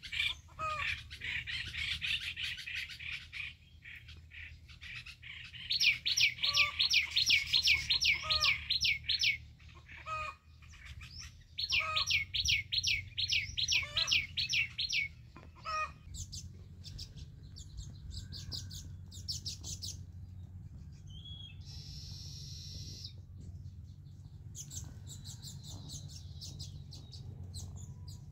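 Birds alarm-calling at a rat snake: runs of high, evenly repeated chirps, about four a second, in bursts of a few seconds, the loudest in the first half, then fainter scattered chirps.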